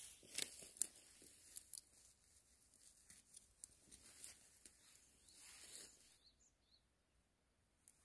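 Faint crackling and tearing of plant stems as wild greens are picked by hand: several sharp snaps in the first two seconds, then softer rustles. A couple of faint bird chirps come about six seconds in.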